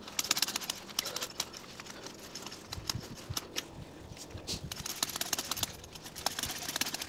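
Wolf Garten scarifying rake's sharp metal blades dragged back and forth through loose soil and dead grass, a dense run of gritty scrapes and clicks as it churns the soil. It comes in busier spells at the start and near the end, with lighter strokes in between.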